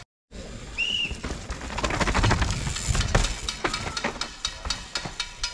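A downhill mountain bike rushing past, tyres over dirt and the bike rattling, swelling to its loudest about two to three and a half seconds in, with sharp clicks throughout.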